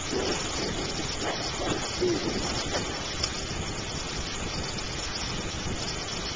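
Heavy tropical-storm rain pouring steadily, heard through a window. A few faint snatches of voice come through in the first three seconds.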